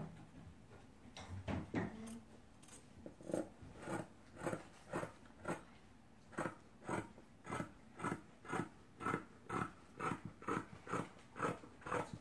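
Scissors snipping through cotton fabric, trimming a garment's seam allowances: a few uneven cuts, then a steady run of snips at about two a second.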